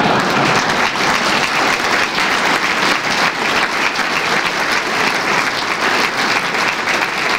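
Large audience applauding, a dense steady clapping that carries on without a break.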